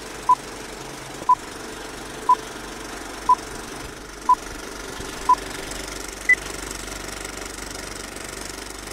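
Film-leader countdown sound effect: a film projector clattering steadily, with a short beep every second, six at one pitch and a seventh, higher beep about six seconds in.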